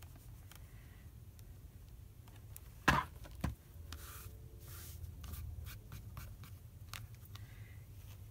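Soft scraping and rubbing as a clothes iron presses a fabric quilt block, then two sharp knocks about three seconds in as the iron is stood on its heel on the cutting mat, followed by the rustle of fabric blocks being handled.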